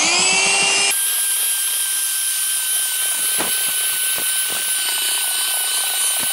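Electric belt sander switched on with a rising whine, then about a second in settling into a steady whine as it wet-sands a glass pane to a frosted matte finish.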